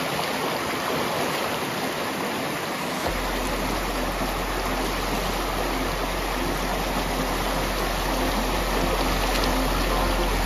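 River water rushing over shallow rapids, a steady rush. About three seconds in, a deep low rumble joins and stays.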